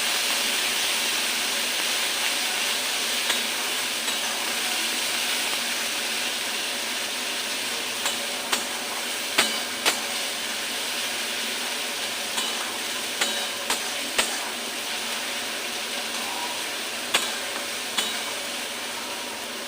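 Spice paste frying in hot oil in a kadai: a steady sizzle that slowly eases, with scattered sharp clicks of a spatula against the pan as the masala is stirred.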